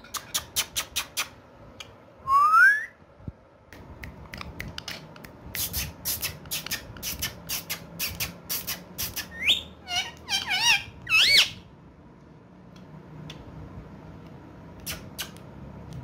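Indian ringneck parakeet giving a rising whistle and then a few short squawky chirps, amid runs of sharp clicks.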